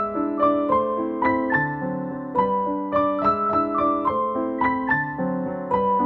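Background piano music: a gentle melody of struck notes, about three a second, over lower held notes.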